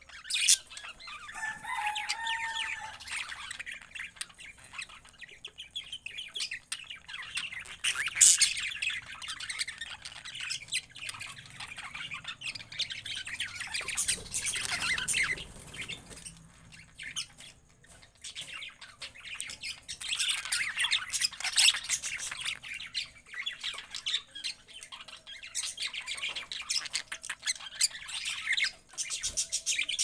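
A flock of budgerigars chirping and chattering in irregular bursts of high warbling calls, loudest about eight seconds in and again around twenty seconds.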